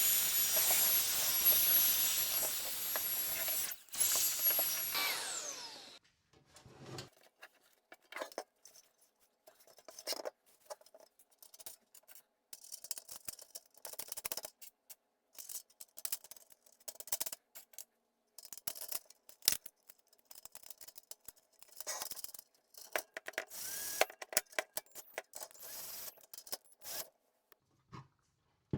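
A small handheld power tool motor runs steadily with a high whine for about six seconds, then winds down and stops. After that come scattered small clicks, taps and rubbing of metal and plastic parts being handled.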